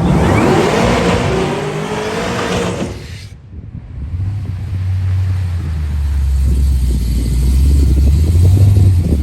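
Car at full throttle on a quarter-mile drag pass: the engine climbs in pitch for about three seconds and drops out suddenly, then a loud, steady low rumble follows.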